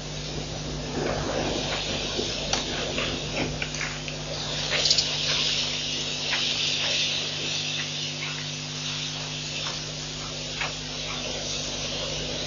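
Night-time waterhole ambience through a live-stream microphone: a steady low hum with scattered faint clicks, and a high hissing buzz that swells between about five and eight seconds in.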